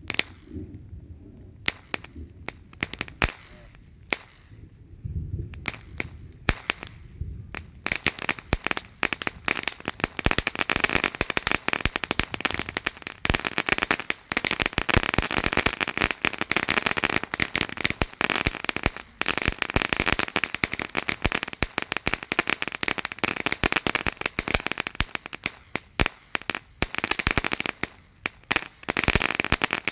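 Diwali firecrackers going off: a few separate sharp bangs at first, then from about eight seconds in a long, dense run of rapid pops, like a string of crackers, that thins out near the end.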